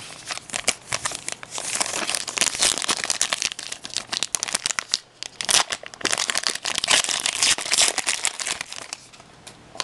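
Plastic wrapper of a hockey card pack crinkling and being torn open, dense irregular crackling with a short lull about halfway through.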